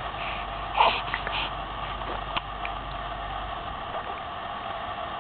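A baby's short gurgling mouth noise about a second in, falling in pitch, followed by a few faint ticks, over a steady background hiss.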